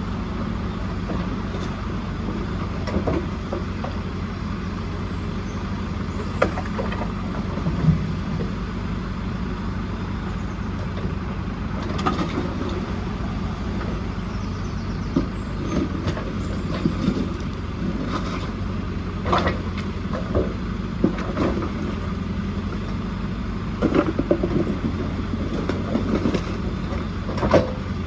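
JCB 4CX backhoe loader's diesel engine running steadily, with scattered short knocks and clunks over it.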